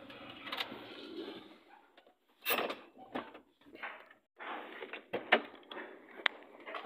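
Handling noise inside a vehicle: scattered clunks, clicks and rustling as the phone is knocked against the door and dashboard, the loudest knock about two and a half seconds in.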